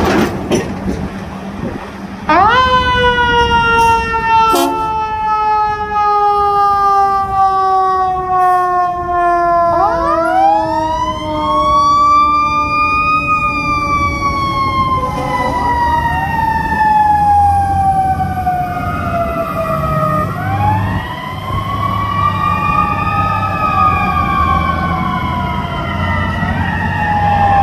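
Fire apparatus mechanical sirens of the Federal Q type. One siren spins up sharply about two seconds in and winds down slowly in pitch. A second winds up around ten seconds in and falls away. The sirens are revved up and down again in the last several seconds, over the low steady rumble of the trucks' diesel engines, with two sharp clicks early on.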